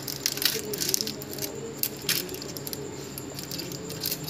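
Aluminium foil crinkling and crackling in short irregular bursts as it is peeled away from a hot, freshly cooked lava cake.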